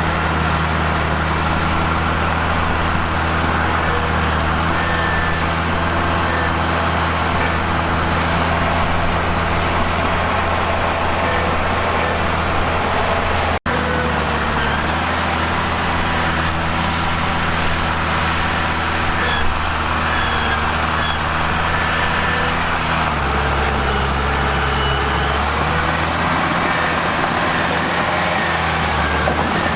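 Mitsubishi bulldozer's diesel engine running steadily under load, its pitch shifting lower about halfway and again around two-thirds through as the engine speed changes.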